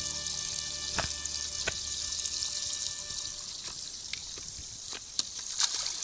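Water hissing and splashing in a boat's aerated livewell as a channel catfish is grabbed out of it, with a low hum that fades out about two and a half seconds in. Several sharp knocks and splashes follow in the second half as the fish is handled over the side.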